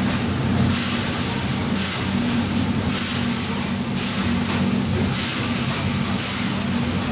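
Paddle steamer's steam engine running, its crankshaft and connecting rods turning. A steady low mechanical hum runs under a hiss that swells and fades about once a second.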